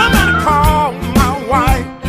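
Blues song playing: a sung melody that slides between notes, over a band with bass and a regular drum beat.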